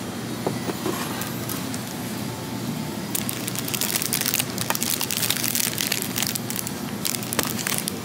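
Crinkly plastic wrapping of a packaged pastry crackling as it is picked up from a display tray. It starts about three seconds in and lasts about four seconds, over a steady low hum of shop background noise.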